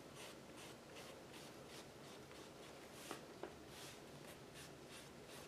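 Faint, repeated soft strokes of a small paintbrush working paint onto a journal's paper page, with two light taps a little past the middle.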